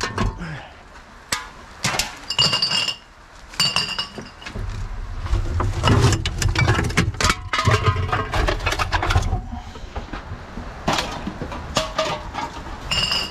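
Glass bottles and drink cans clinking and knocking together as they are rummaged through and pulled from a bin, with a bottle ringing briefly three times.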